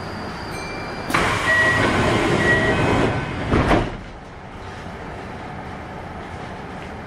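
Sliding passenger doors of a Kintetsu 1021-series train closing at a station stop. A sudden loud rush about a second in, with two short beeping tones, ends in a thump as the doors shut a little under four seconds in.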